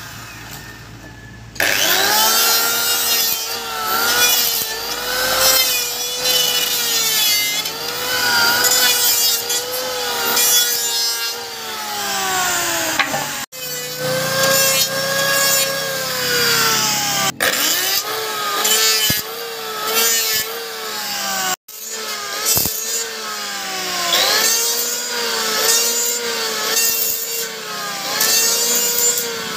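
Electric hand planer cutting wood: its motor whine drops in pitch each time the blades bite and rises again as it unloads, over and over every second or two. A few abrupt short breaks interrupt it.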